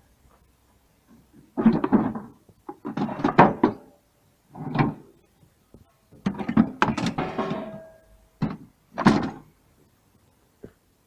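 Metal parts of a gas boiler being handled and pulled apart: about six bursts of clanking and rattling, the longest a few seconds before the end.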